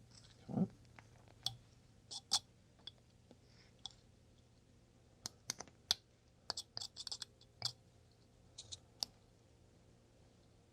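Carving knife slicing basswood: scattered small sharp clicks as short cuts are made to texture the hair, with a quick run of them around the middle. A brief low thud sounds near the start.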